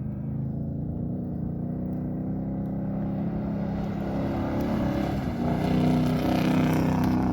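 Engine of an off-road racing vehicle running steadily and growing louder in the second half, as if coming closer or pulling harder.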